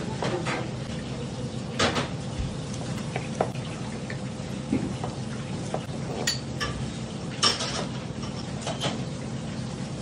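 Chef's knife cutting crosswise through a whole fish on a plastic cutting board: irregular clicks and knocks as the blade goes through and meets the board, over a steady low hum.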